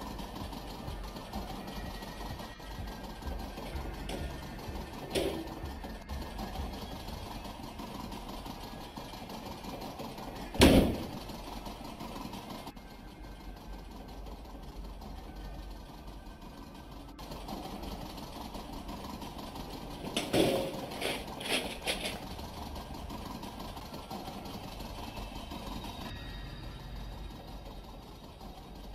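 A steady low hum, with one loud sharp knock about ten seconds in, a smaller knock earlier, and a quick run of about four knocks around twenty seconds in.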